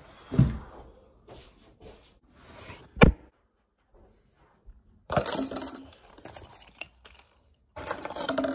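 Handling noise of a phone being set down on a table, with one sharp knock about three seconds in, then rustling clatter and clinks as keys and small objects are picked up off the tabletop.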